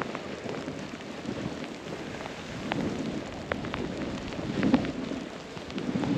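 Snowboard sliding and scraping over snow, swelling and easing with each turn, with scattered small ticks.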